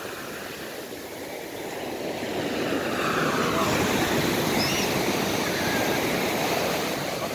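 Ocean surf: a wave breaking and its foam rushing up over the sand. It swells about two seconds in, stays loud through the middle and eases off near the end.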